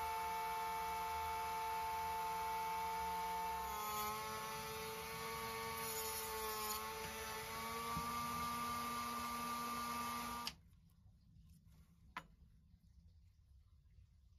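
Rotary tool running with a steady high whine while grinding the ends off a diecast toy's steel axles. Its pitch sags and wavers for a few seconds under the load, then rises again. The sound stops abruptly about ten and a half seconds in, and a single faint click follows.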